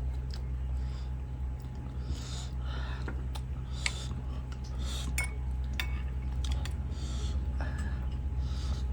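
Cutlery clinking against a dish: several light, separate taps, a couple of them briefly ringing, over a steady low hum.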